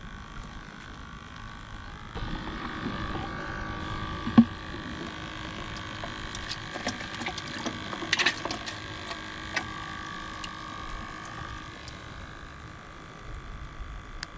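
A battery bait-bucket aerator humming steadily, over the clicks and knocks of the plastic bucket and lid as a hand reaches into the water for live shrimp. One sharp knock about four seconds in is the loudest.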